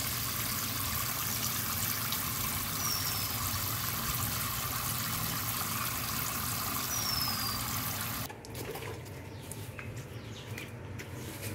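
Water from a watering can's rose spout pouring in a steady shower into a tub of muddy water, splashing on the surface. It cuts off suddenly about eight seconds in.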